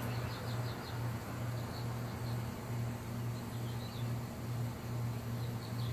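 A steady low hum that pulses a few times a second, with faint high chirps now and then.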